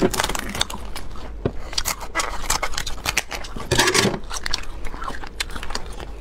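Scissors snipping and cracking the spiny shell of a cooked king crab, with crackles and scrapes as the shell of a leg is broken and pulled apart; a louder cluster of cracking comes about four seconds in.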